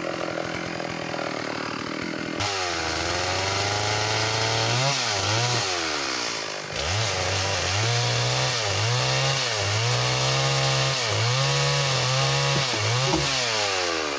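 Small chainsaw running slower, then throttled up sharply about two seconds in and cutting into a red meranti log. The engine pitch repeatedly sags as the chain bites into the wood and climbs back as it frees.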